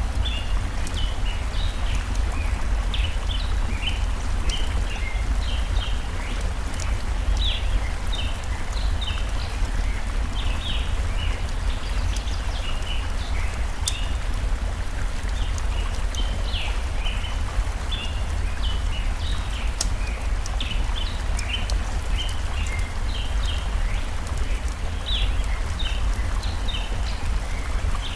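Steady rush of a flowing forest stream, with small birds chirping in short, repeated phrases throughout, and a few sharp crackles from a wood fire.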